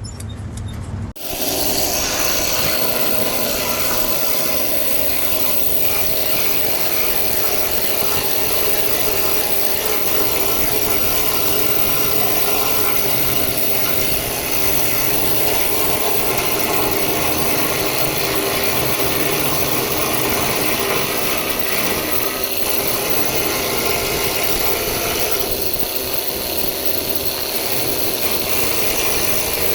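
Needle guns hammering on metal, chipping off old paint with a loud, continuous, harsh rattle that starts about a second in. The noise is really annoying.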